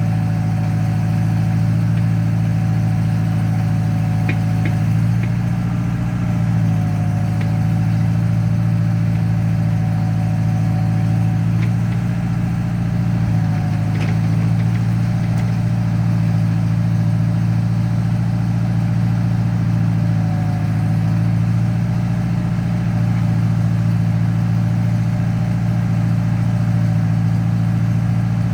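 Ford 8N tractor's four-cylinder flathead engine running steadily, its note dipping briefly in pitch a few times, with a few faint clicks.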